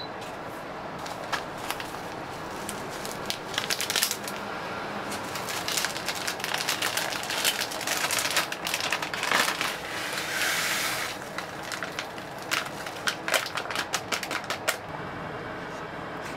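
A short beep from a digital kitchen scale, then lumpy shiratamako (glutinous rice flour) being poured from its packet into a glass bowl on the scale, with many small ticks and crackles of the grains landing on the glass and a brief hiss of finer flour pouring about ten seconds in.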